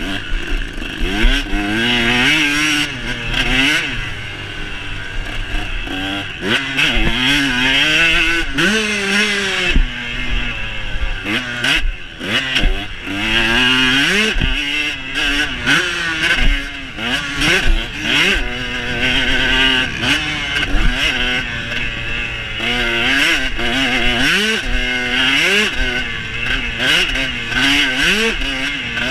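Dirt bike engine being ridden hard on a motocross track, its pitch climbing again and again through the gears and dropping back off the throttle between climbs.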